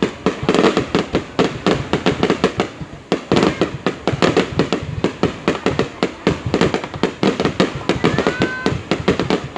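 Fireworks going off: rapid, continuous bangs and crackling, several per second, with a brief whistling tone about eight seconds in.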